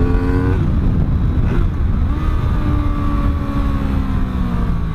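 Honda VFR 800's 90° V4 engine under way: the revs climb, then drop sharply about half a second in, and the engine runs on at a steadier, slowly falling pitch. Heavy wind rumble on the microphone underneath.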